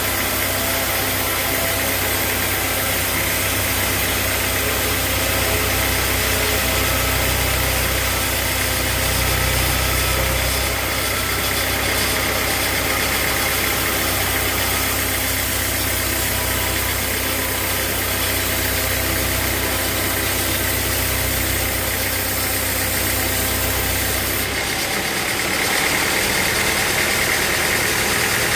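Sawmill machinery running steadily: a continuous motor hum with a strong low drone. About 25 seconds in, the low drone drops away and the sound changes.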